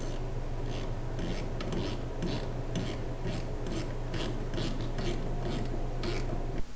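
Ratchet wrench clicking in short strokes, about two a second, as it drives bolts into the snowblower's rubber auger. A steady low hum runs underneath and cuts off near the end.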